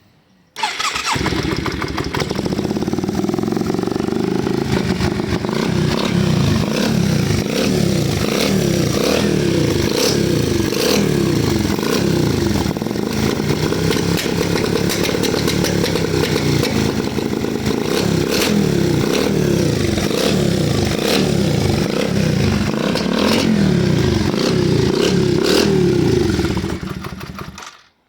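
Yamaha Virago V-twin motorcycle engine catching and running roughly, revved up and down over and over with a lot of irregular clatter, then shut off near the end. The rough, clattering running is what the bike's owner calls the engine coughing up its insides.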